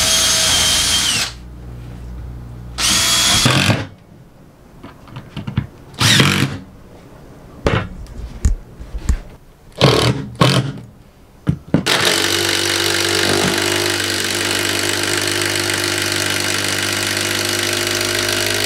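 A cordless drill pre-drilling pilot holes in a plywood subfloor, and a Makita cordless impact driver driving screws. There are several short runs, then one steady run of about seven seconds near the end as a screw threads in and pulls down tight.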